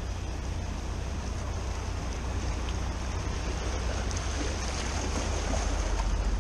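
Engines of a flybridge sportfishing boat running as it motors past through the inlet, a low steady rumble. In the last couple of seconds its wake starts washing against the jetty rocks and the sound swells a little.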